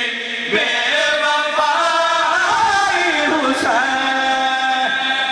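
A man's voice chanting a religious recitation in long, wavering melodic lines, with notes held and bent in pitch.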